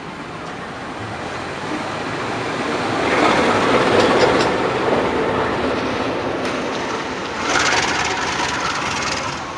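Diesel locomotive running light during shunting, passing at close range: engine and wheel-on-rail noise build to a peak about three to four seconds in as it goes by, then rise again briefly near eight seconds as it moves off.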